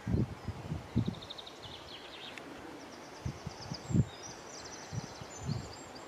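Open-field ambience: rapid, high-pitched chirping trills come and go, over irregular low gusts of wind buffeting the microphone.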